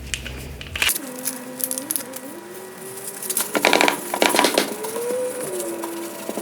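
Foil wipe pouch being torn open and crinkled, in crackly bursts about three and a half to four and a half seconds in. A faint tone slides up and down alongside.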